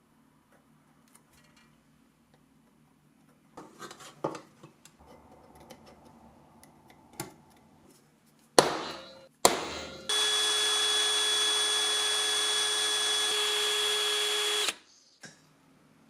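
Two sharp knocks, then a gas torch lit for brazing brass runs with a loud, steady hiss and a faint whistle for about five seconds before it cuts off suddenly. Quiet handling noises come before it.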